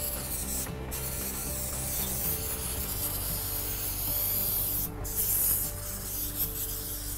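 Aerosol can of high-temperature headliner adhesive spraying in three long hissing bursts, with short breaks about a second in and about five seconds in.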